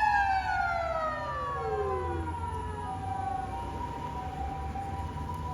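Ambulance siren: a burst of the wailing remote siren slides down in pitch over about two seconds, then the hi-lo two-tone siren alternates steadily for the rest. A low engine and road rumble runs underneath.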